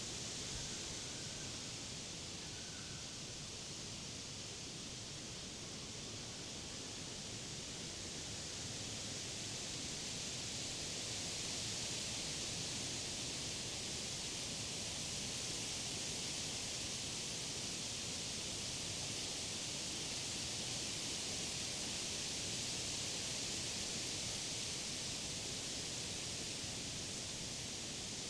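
Wind rustling through the leaves of summer trees and grass, a steady hiss that swells slightly about ten seconds in.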